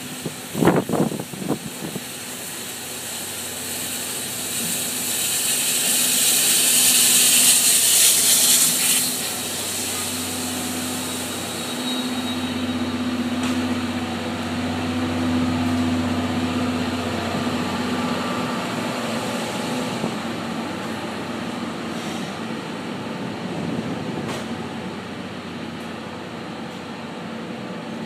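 JNR Class C57 steam locomotive C57 180 arriving at a station: a few sharp knocks in the first two seconds, then a loud, high hiss of steam lasting about five seconds. After that comes a steady low hum that fades to a quieter background rumble.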